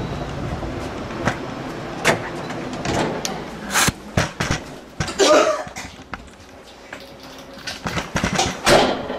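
Low, steady engine hum of heavy construction machinery fading over the first few seconds. Then a run of knocks and clatters of a door and window being handled, with two short noisy bursts about five and nine seconds in.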